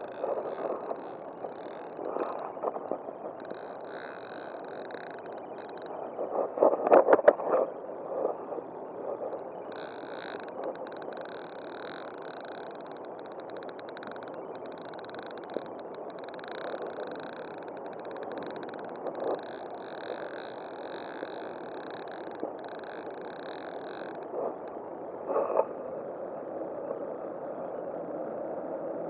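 Steady rush of flowing river water, with a high trilling call running on and off over it and a couple of louder brief bursts of noise, about a quarter of the way in and near the end.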